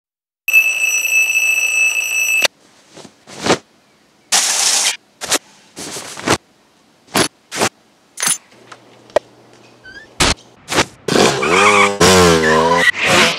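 An alarm clock ringing steadily for about two seconds, then a string of short knocks, clicks and brief hissing noises. Near the end a motorcycle engine revs loudly, its pitch rising and falling.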